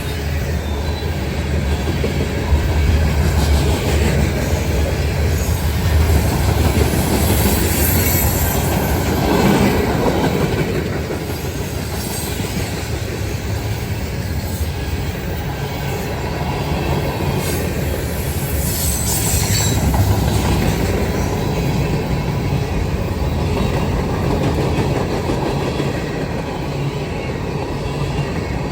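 Freight cars of a long mixed freight train rolling past, a steady heavy rumble with wheels clicking over the rail joints and brief wheel squeal now and then.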